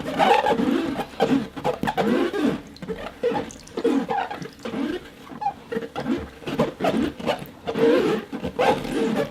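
Fingers rubbed across a rosin-coated board, giving a string of squeaky, creature-like tones that bend up and down in pitch, in short irregular strokes with brief gaps between them.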